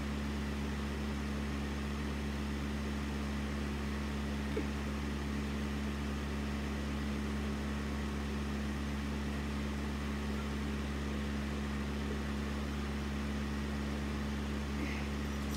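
Steady low machine hum with a faint hiss over it, and one faint tick about four and a half seconds in.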